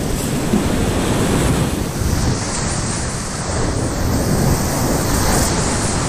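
Class V whitewater rapids rushing, loud and steady, heard from a kayak in the middle of the rapid, with water crashing over the bow and onto the microphone. A brighter splashing hiss builds from about two seconds in.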